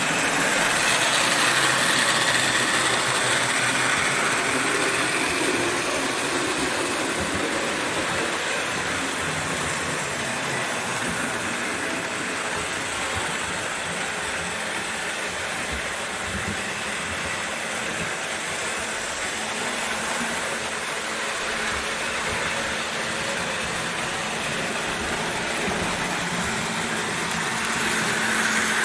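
O gauge toy train running on three-rail track, its electric motor whirring and wheels rolling on the rails. It grows louder about two seconds in and again near the end, as it passes close by.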